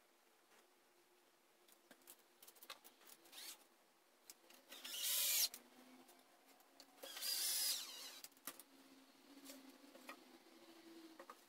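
A handheld power drill running in two short bursts, each about a second long and about two seconds apart, with small knocks of wood being handled around them.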